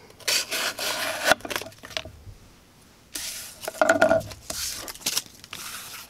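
Artisan Cutlery Wren folding knife's blade slicing through corrugated cardboard: several cutting strokes, with a short pause about a third of the way in.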